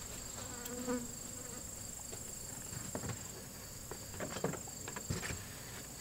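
Steady high-pitched insect chorus droning without a break, with a few faint knocks and clicks in the second half.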